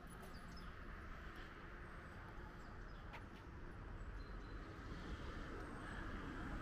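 Faint outdoor background noise: a steady low rumble and hiss, with a few light clicks about three seconds in.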